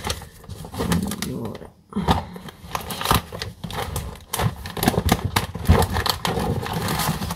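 Cardboard boxes and paper packets rustling, crinkling and knocking as someone rummages through a kitchen cupboard, with irregular clicks and taps throughout.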